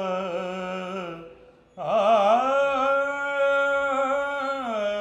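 A naat khwan singing a devotional verse solo, with no instrument heard. One held phrase ends about a second in, and after a short breath a longer, ornamented note with wavering turns is sustained until it falls away near the end.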